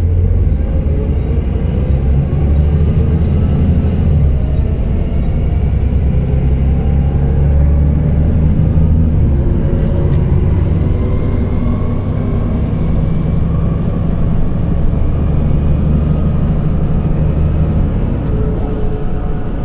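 A Volvo B7TL double-decker bus's rear-mounted six-cylinder diesel running under way, heard from inside the upper deck as a heavy low rumble. The engine note climbs more than once as the bus pulls away and accelerates, and the rumble eases slightly near the end.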